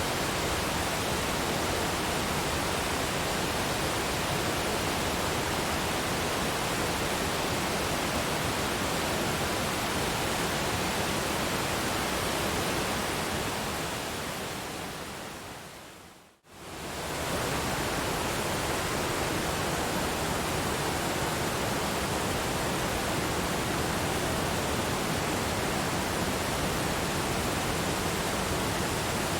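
Waterfall water pouring, a steady even rush of noise. A little past the middle it fades away to a moment of silence and quickly swells back to full.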